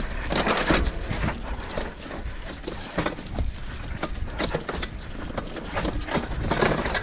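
Mountain bike rattling and clattering over rough dirt trail: irregular knocks and clicks over a low rumble.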